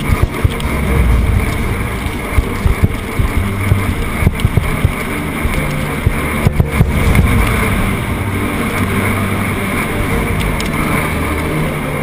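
Mountain bike rattling down a rough dirt trail, a steady low rumble with wind buffeting the camera microphone and sharp knocks as the bike hits bumps.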